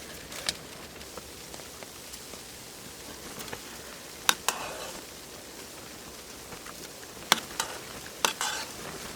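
Food sizzling steadily as it cooks on a wood stove inside a tent, with a few sharp clicks and clinks of a utensil against the cookware.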